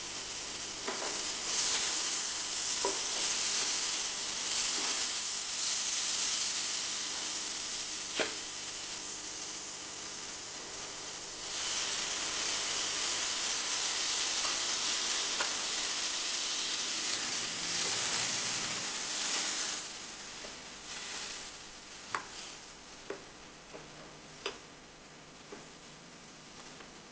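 Food sizzling as it fries in oil in a pan, with the spoon or spatula clicking against the pan as it is stirred. The sizzle dies down after about 20 seconds, leaving a few sharp clicks.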